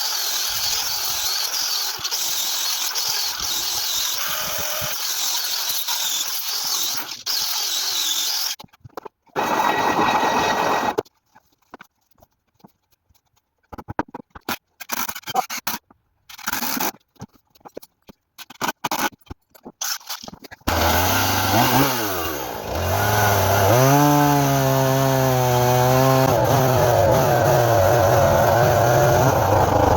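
A chainsaw starts about twenty seconds in, its pitch rising as it revs up, then runs steadily, as used to trim a log end. Before it, a steady hiss for several seconds, then short broken bursts of sound with silent gaps between them.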